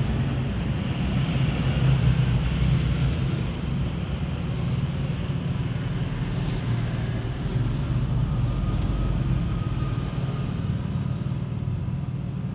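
Steady low rumble of road traffic, a motor vehicle running close by.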